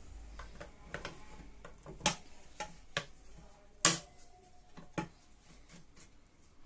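Hand tools and small metal engine parts clicking and knocking against each other and the workbench: about six separate sharp clicks at irregular intervals, the loudest two around two and four seconds in.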